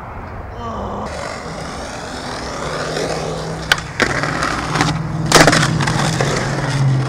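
Skateboard wheels rolling on rough concrete, with a sharp clack of the board on the concrete about three and a half seconds in and a louder clack about five and a half seconds in.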